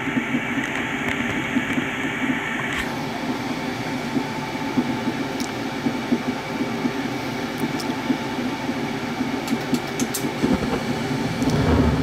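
Draft inducer fan of a high-efficiency condensing gas furnace running with a steady hum through the pre-ignition purge while the hot surface igniter heats. Near the end the gas valve opens and the burners light with a low rush.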